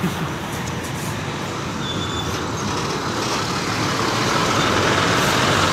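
Daewoo BV115 bus's diesel engine running close by with road and traffic noise, growing steadily louder.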